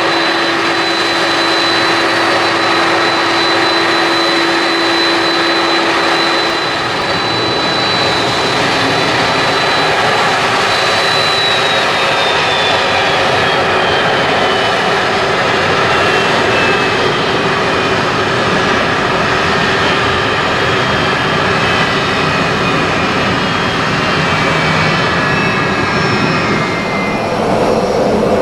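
Jet airliner's engines: a loud, steady rush with a thin high whine that slides gradually down in pitch from about a third of the way in.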